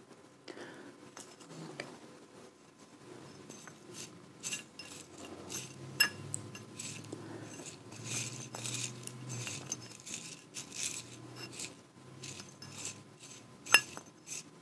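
Small glass dish being handled: light taps, clinks and soft rustling, with a sharp glassy clink about six seconds in and a louder one near the end.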